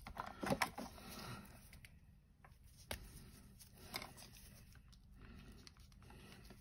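A few sharp clicks and light handling noise as paintbrushes and a plastic brush pot are picked up and put down, while a new brush is chosen.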